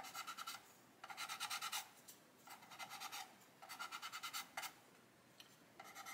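Sanding pad rubbed quickly back and forth over a joint on a plastic model kit's hull to level it: faint rasping strokes in short spells of about a second, with brief pauses between them.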